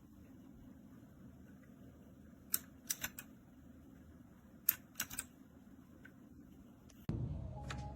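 A handful of keystrokes on a DIERYA T68SE 60% mechanical keyboard with red linear switches, in two short clusters of clicks. Near the end a louder low hum sets in.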